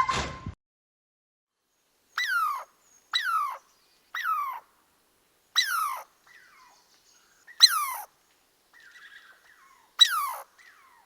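An animal calling repeatedly: six short, high calls, each sliding down in pitch, with pauses of one to two seconds between them.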